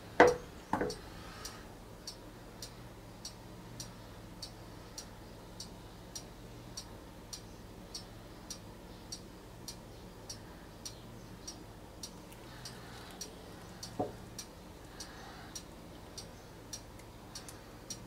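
A faint, steady ticking, about one tick every 0.6 seconds, runs over a low background hum. Right at the start there are two knocks close together, the loudest sounds here, and another single knock about 14 seconds in, as the wet painted canvas is handled and tilted.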